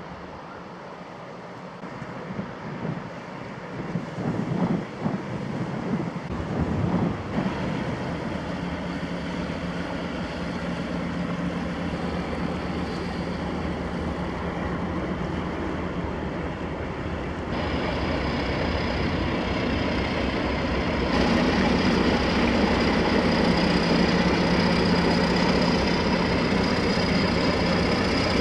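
Diesel engine of a passing inland vessel running steadily, a low hum with a held tone, getting louder in steps as it nears. Irregular gusty bumps over the first few seconds.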